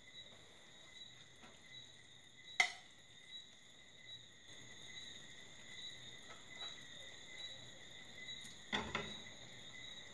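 Metal serving spoon scraping and clinking in a frying pan and against a plate as steamed callaloo is dished out. There is one sharp clink about two and a half seconds in and a few more near the end, over a faint steady high-pitched drone.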